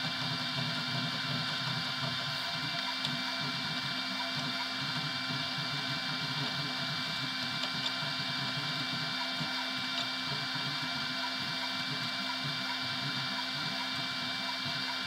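FDM 3D printer at work: its stepper motors give a steady high whine over a repeating low buzzing pulse as the print head moves back and forth laying down filament.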